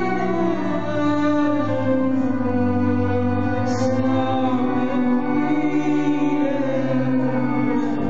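Solo violin played with a bow, slow held notes layered over sustained looped violin drones that overlap and change pitch slowly.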